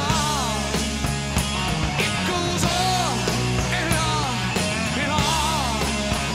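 Rock music track with a steady drum beat and a melody line that bends in pitch.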